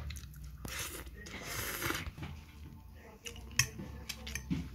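Eating noises: a fork clicking against a plate while twirling spaghetti, a breathy hiss early on, and chewing.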